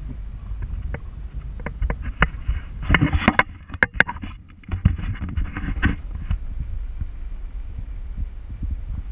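Vehicle engine running at low speed with a steady low rumble as it creeps along a dirt track, with a cluster of knocks and rattles from about one to six seconds in, densest around three to four seconds.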